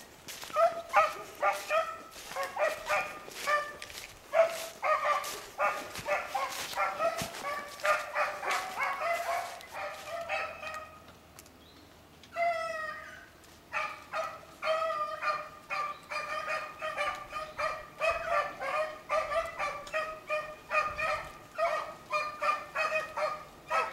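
A pack of beagles baying in chorus on a rabbit's track, a steady run of short bays several a second. The cry dies down briefly about halfway through, then picks up again.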